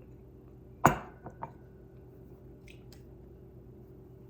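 A single sharp knock about a second in, followed quickly by two lighter taps and a couple of faint clicks later, over a low steady hum.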